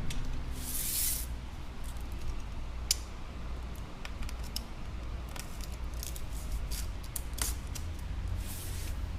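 Adhesive tape strips being cut and handled: scattered small clicks and snips, with a short hissing rustle about a second in and another near the end.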